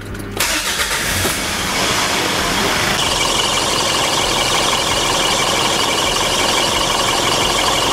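Mitsubishi Pajero Sport's engine starting about a third of a second in, then idling steadily. It is run so that the automatic transmission's pump pushes the old fluid out for the first flush of a full fluid exchange.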